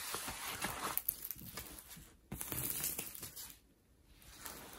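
Rustling and crinkling of a large diamond painting canvas and a paper sheet being lifted and smoothed flat by hand. It comes in two main bursts, with a softer rustle near the end.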